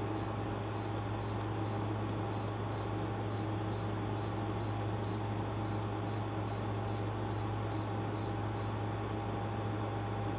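TCL 6000 BTU window air conditioner running with a steady hum, while a run of short, high beeps sounds about two to three times a second and stops near the end.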